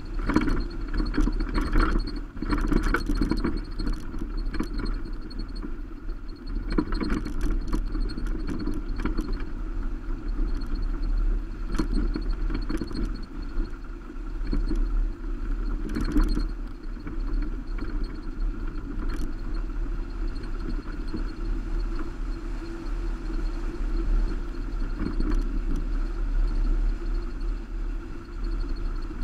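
Subaru Baja driving on a gravel road, heard from a camera on its roof rack: a steady rumble of road and wind noise with frequent short knocks and rattles, thickest in the first few seconds and again about sixteen seconds in.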